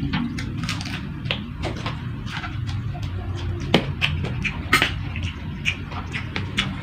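Close-up eating sounds: chewing and crunching food, many short crisp clicks at an irregular pace, over a steady low hum.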